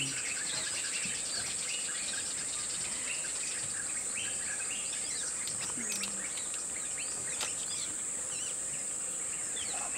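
Steady high-pitched drone of calling insects, with scattered short bird chirps and calls over it.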